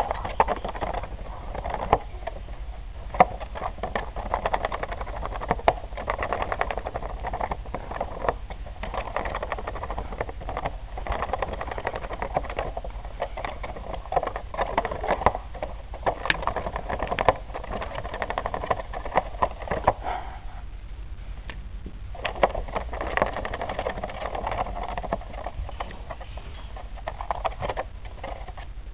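Hamster gnawing through a cardboard box wall from inside: a rapid, continuous crackle of small bites and tearing with scattered sharper snaps, pausing for about two seconds about two-thirds of the way through before resuming.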